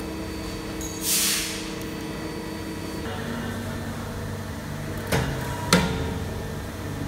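Hydraulic embossing press running: a steady hum from its pump motor, whose tone shifts about three seconds in, a short hiss about a second in, and two sharp metallic clunks about half a second apart near the end as the heated plates close together.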